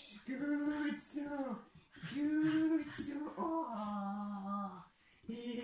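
A woman's voice in several drawn-out, sing-song phrases, the longest held on one steady note.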